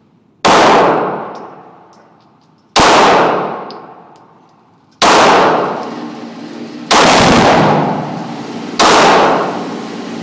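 Glock 19 9mm pistol fired five times in slow succession, about two seconds between shots, each shot followed by a long ringing echo that fades away.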